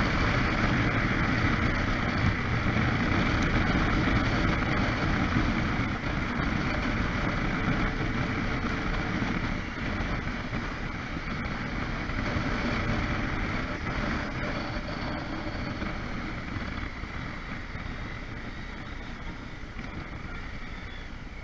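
Wind rush and road noise from a motorcycle riding in city traffic, heard at a camera mounted on the bike, steady at first and fading gradually over the second half as the bike slows.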